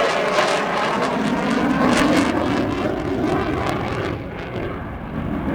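A fixed-wing display aircraft flying past with a loud, steady engine noise. The noise dulls and fades somewhat in the last second or so as it moves away.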